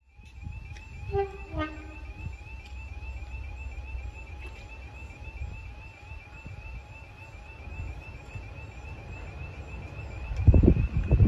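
A pair of Class 20 diesel locomotives working, their English Electric engines running with a low rumble and a high wavering whistle. A short two-note horn sounds about a second in. A heavier low rumble swells near the end.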